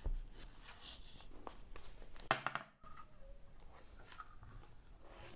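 Cardboard packaging being handled: a box lid lifted and the phone box slid out, with light scrapes, rustles and small taps. A sharper knock comes just past two seconds in.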